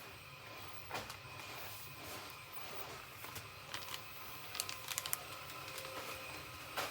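Packaging and merchandise being handled: scattered light clicks and crinkles over a steady background hiss, busiest around the middle.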